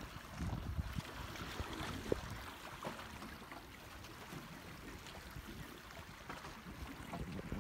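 Water lapping and sloshing among shoreline rocks over an uneven low rumble.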